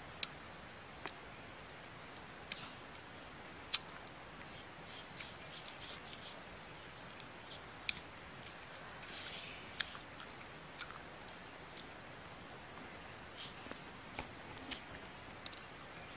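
Steady high-pitched insect chorus in forest undergrowth, with scattered brief sharp clicks and small crackles from hands handling fruit on a leaf.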